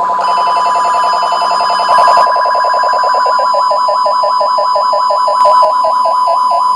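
1 kHz test tone from a signal generator played through a bucket-brigade (BBD) digital echo unit with all four echoes on, giving a warbling, rapidly pulsing electronic tone. Just after the start the tone is switched from sine to square wave and turns buzzier, with a ladder of added overtones.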